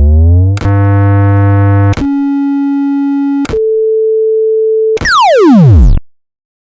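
Synthesized electronic intro tones. A rising glide opens it, then a sequence of steady beeping tones steps to new pitches about every second and a half, and a falling sweep ends it about six seconds in.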